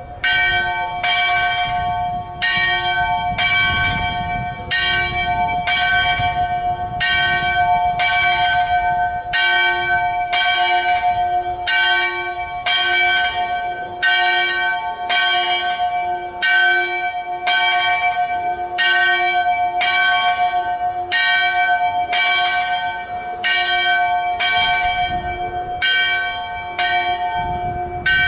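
The 1512 bell of Santa Maria della Misericordia, tuned to F♯, swung full circle in distesa. Its clapper strikes in a steady rhythm a little more than once a second, and each stroke rings on into the next.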